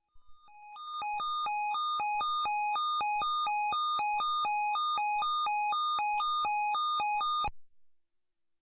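Electronic two-tone alert alternating steadily between a lower and a higher pitch, about two high-low cycles a second, ahead of a weather radio Severe Thunderstorm Watch broadcast. It runs for about seven seconds and cuts off suddenly.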